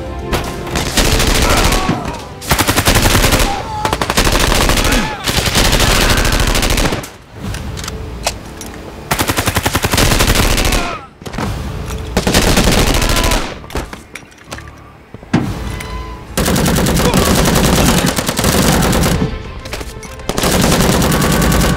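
Bursts of rapid automatic gunfire, each lasting one to three seconds with short gaps between, over background music.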